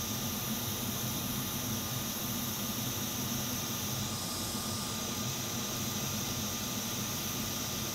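Hot air rework station blowing on a flux-covered chip to melt its solder for removal: a steady hiss of air over a low fan hum, the hiss briefly brighter about four seconds in.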